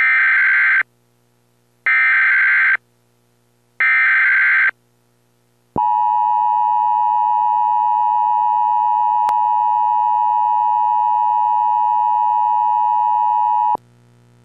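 Emergency Alert System activation: three bursts of digital header data, each about a second long and about two seconds apart, followed by the long steady single-pitched attention tone held for about eight seconds and cut off sharply, over a faint low hum.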